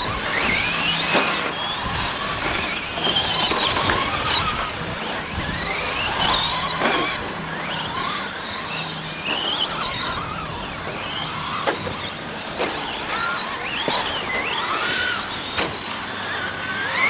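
Several 1/10-scale 2WD radio-controlled short course trucks racing, their electric motors whining and sliding up and down in pitch as they speed up and slow. A few sharp knocks come through the whine.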